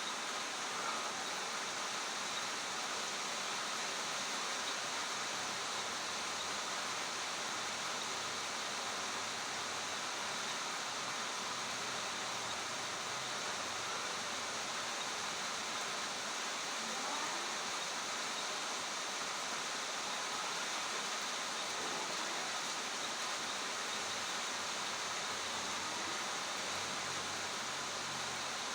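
Steady rushing water, an even unbroken hiss like a stream or small waterfall.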